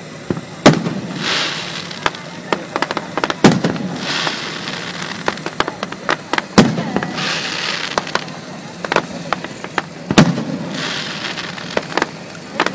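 Aerial fireworks shells bursting: four loud bangs about three seconds apart, each followed by a crackling hiss, with smaller pops in between.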